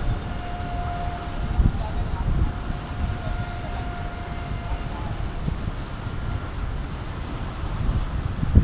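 Wind buffeting the microphone over the noise of choppy river water, with a faint steady tone held through roughly the first five seconds.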